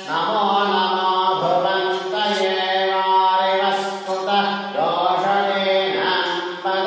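A voice chanting mantras in long, sustained, melodic phrases with brief breaks between them, over a steady low held tone.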